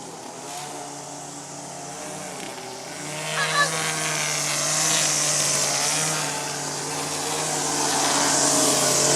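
String trimmer (weed eater) motor running at a steady speed, growing louder about three seconds in.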